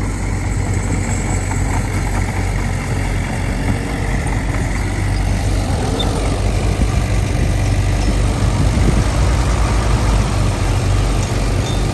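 Diesel engine of earthmoving machinery running steadily with a low hum, growing a little louder from about halfway through as the machine works.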